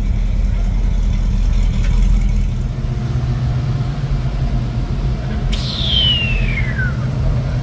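Truck engine running with a steady low rumble. Near the end, a high whistle falls steadily in pitch for about a second and a half.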